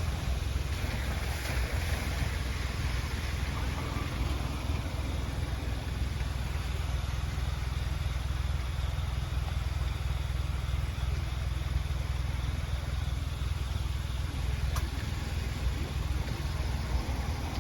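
Steady rushing noise with a strong low rumble from a river swollen by a typhoon, its floodwater flowing fast.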